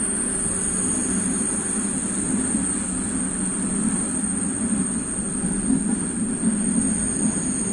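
Steady rumble of a BDs450 passenger carriage running along the track, heard from the rear car, with a thin high-pitched whine above it; a second high tone joins about half a second in and fades out near the end.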